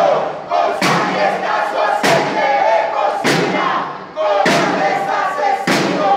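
A crowd of protesters chanting and shouting together, with a sharp beat struck about every 1.2 seconds, five times.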